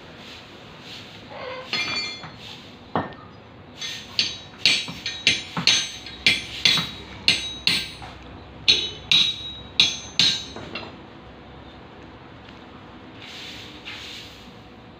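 Farrier's hammer striking a metal horseshoe, a quick run of ringing metallic blows at about three a second from about four seconds in until about ten and a half seconds in, after a couple of lighter clinks.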